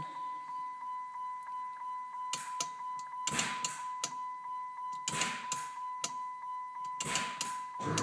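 Compressed air hissing in short bursts, about every two seconds, as the air-suspension valves let tank air into the air bags and the tank pressure drops. A steady high-pitched whine runs underneath.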